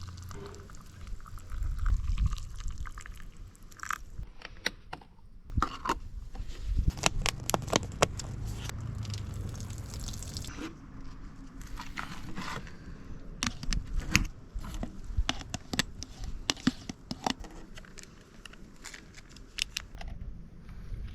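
Camp cookware and utensils being handled during cooking: scattered clicks, knocks and scrapes, with some pouring or liquid sounds, over a low rumble.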